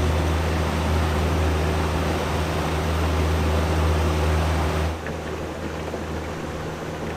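Yamaha 50 outboard motor running steadily at cruising speed, a low even drone over the rush of water and wind past the hull. It drops somewhat in level about five seconds in.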